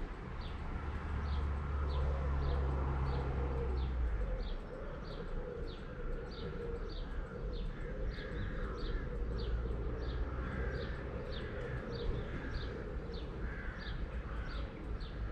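A small bird chirping repeatedly, one short high chirp about every half second and very regular, over a low rumble that is strongest in the first few seconds.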